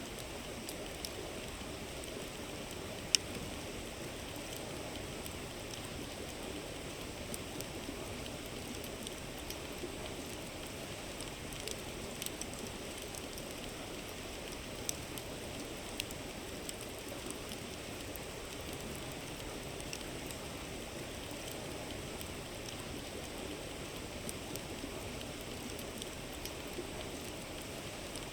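A river's steady rushing murmur with a campfire crackling over it: scattered sharp pops, one much louder pop about three seconds in.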